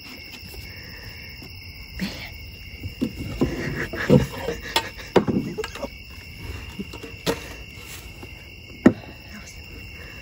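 Night insects chirring steadily, with scattered knocks and thumps, the sharpest near the end.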